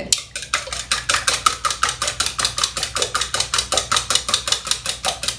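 Eggs being beaten by hand in a mixing bowl, the utensil clicking against the side of the bowl in a fast steady rhythm of about eight strokes a second.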